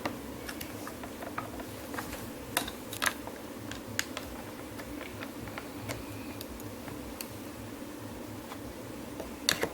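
Scattered light plastic clicks and taps as the door-handle trim of a 2013 Ford Mustang inner door panel is worked and pried at its retaining clips, over a steady low hum.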